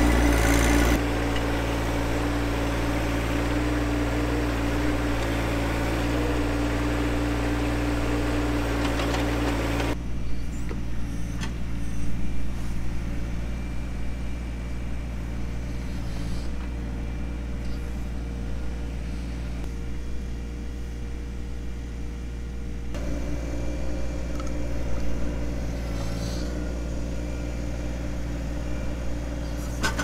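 John Deere 1025R compact tractor's three-cylinder diesel engine running steadily while its backhoe digs a trench. The sound changes abruptly about one, ten and twenty-three seconds in, and is duller and a little quieter in the middle, with a few short knocks.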